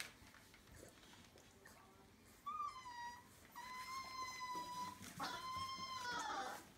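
24-day-old Entlebucher puppy whining: three long, high-pitched whines, starting about two and a half seconds in.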